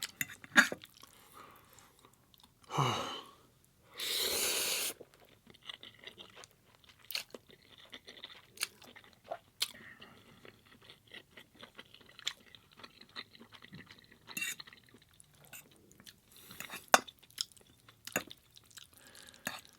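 Close-miked mouth sounds of a person chewing spaghetti and garlic bread sticks: many small wet smacks and crunches, with a loud rushing burst lasting about a second around four seconds in.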